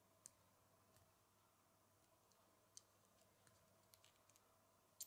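Faint, sparse clicks of small plastic Lego pieces being handled and pressed onto a model, with a single sharper click a little after the start and another near three seconds in, and a quick run of clicks starting at the very end.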